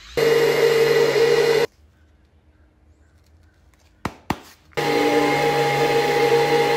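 Electric orbital sheet sander with a rectangular pad sanding a wooden tabletop: it runs with a steady hum and whine for about a second and a half, stops, and starts again a few seconds later. Two sharp clicks come in the gap just before it restarts.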